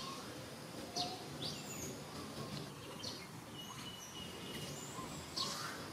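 Outdoor ambience of small birds chirping: scattered short high chirps and swooping calls, with one thin held note lasting a couple of seconds in the middle, over a steady background hiss.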